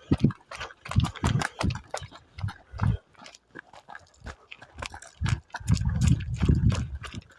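A trail runner's footfalls on a dirt path, about three a second, with heavy breathing. The sound eases off briefly past the middle, then picks up again near the end.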